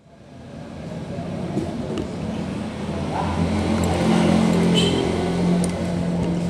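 A motor vehicle's engine running with a steady low hum, a little louder in the middle, with a few light clicks.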